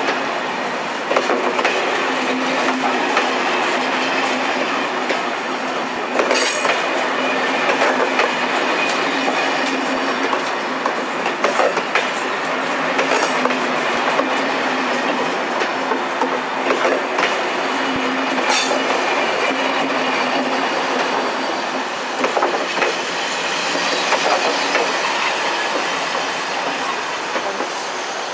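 A train of Corail passenger coaches rolling slowly past, wheels clacking irregularly over rail joints above a steady hum.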